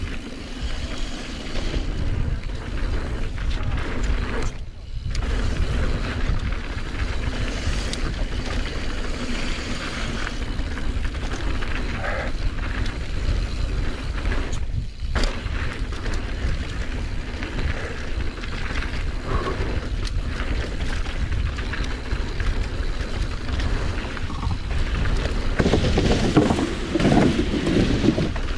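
Mountain bike descending a dirt bike-park flow trail, heard through a rider-mounted action camera: steady wind rumble on the microphone with tyre and bike rattle. The sound cuts out briefly twice and gets rougher and louder near the end.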